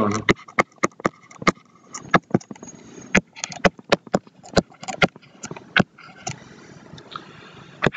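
A stylus tapping and scratching on a tablet screen during handwriting: an irregular series of sharp clicks, a few a second, as pen strokes touch down. The clicks thin out near the end.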